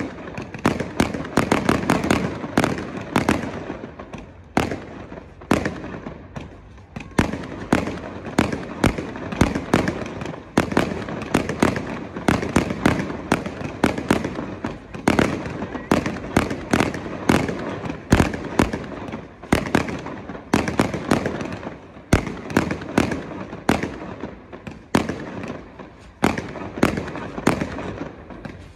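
Aerial fireworks display: shells bursting one after another, with sharp bangs several times a second and crackling between them.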